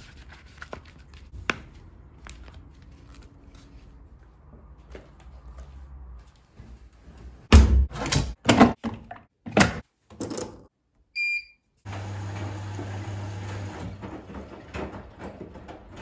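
Soft footsteps and small clicks, then a quick series of loud thuds and knocks, and a short electronic beep from a household appliance. After the beep comes the steady low hum of a washing machine starting to run.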